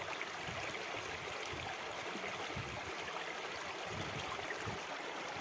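Shallow stream flowing over and between rocks: a steady rush of running water.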